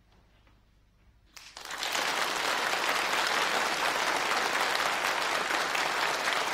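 An audience applauding: near quiet for about the first second and a half, then the clapping starts suddenly and stays steady and full.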